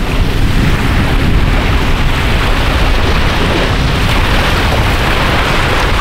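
Wind blowing hard across the microphone: a loud, steady rushing rumble.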